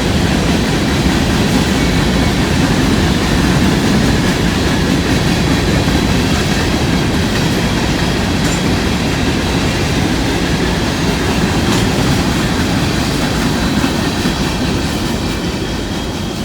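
Empty coal cars of a CSX freight train rolling past, a loud steady rumble of wheels on rail with clickety-clack, beginning to fade near the end.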